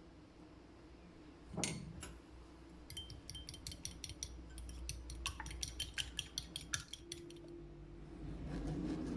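Cutlery and dishes clinking: a single knock, then about four seconds of quick, light clinks, some of them briefly ringing.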